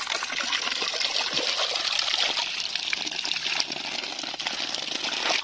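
Water pouring and running into water, a steady continuous rush.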